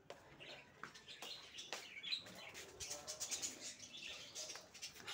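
Faint, irregular chirping of small birds, many short high calls, with light scattered clicks.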